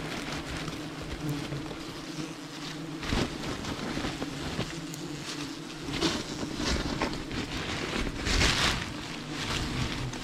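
Wasps buzzing in a steady hum close to the microphone, with irregular rustling and scraping as a wasp nest's paper combs are handled and broken off; the loudest burst of rustling comes about eight and a half seconds in.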